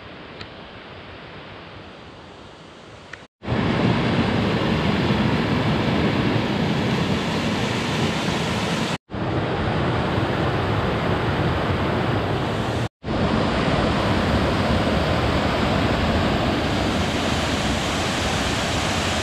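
White water of a rocky hill stream and waterfall rushing over boulders: a loud, steady rush. It starts as a quieter hiss for the first few seconds, then comes in loud, and breaks off for an instant twice.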